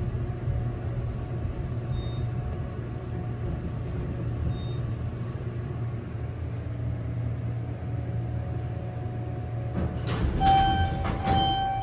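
Parking-garage elevator car travelling with a steady low hum, and a short high beep about every two and a half seconds. About ten seconds in, knocks and a held chime tone as the car arrives and stops.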